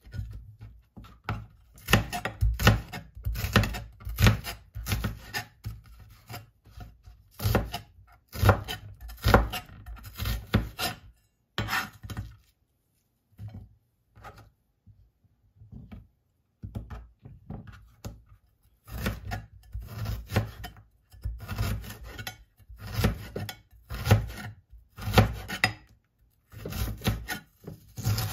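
Chef's knife peeling and cutting onion and ginger on a plastic cutting board: runs of quick, irregular knocks of the blade on the board, with a pause of a few seconds about halfway through.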